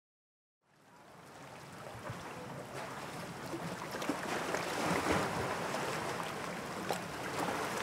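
Sea ambience: a steady rushing of water fading in from silence about a second in and slowly growing louder, with a few faint clicks.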